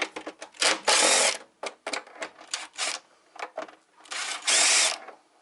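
Screwdriver working at screws in the plastic case of an APC Back-UPS unit: a run of clicks and knocks, with two longer rasping bursts about a second in and again near the end.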